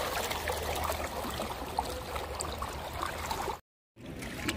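Water splashing and trickling off kayak paddles as the kayak is paddled along. The sound cuts out completely for a moment about three and a half seconds in.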